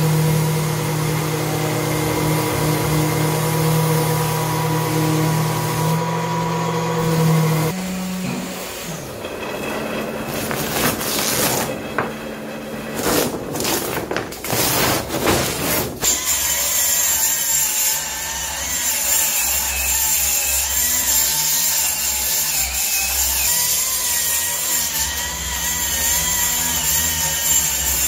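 Electric sanders and grinders working on putty-coated walls to flatten them before wallpapering. A motor runs at a steady pitch at first; about eight seconds in it gives way to irregular scraping strokes, and from about sixteen seconds in another tool runs with a wavering pitch.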